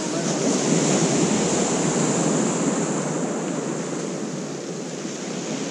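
Surf breaking and washing up a shingle beach, swelling about half a second in and then slowly easing off.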